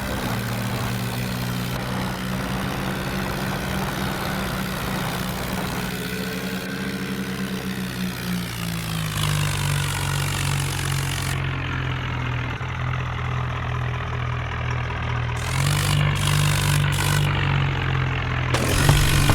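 A vehicle engine running steadily. Its pitch drops about eight and a half seconds in, and the background noise changes abruptly a few times later on, as if at cuts.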